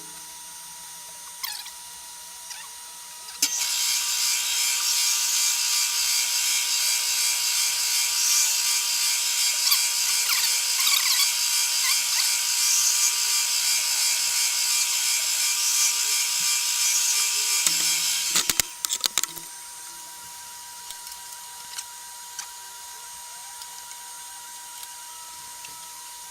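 Milling machine cutting into a wooden workpiece: a loud, hissing cut starts about three and a half seconds in and stops suddenly at about eighteen seconds, followed by a few clicks. The machine runs on with a steady whine before and after the cut.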